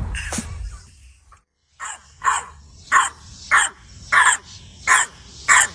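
French bulldog puppy barking: a steady run of short barks, about one every two-thirds of a second, starting about two seconds in after a brief silence.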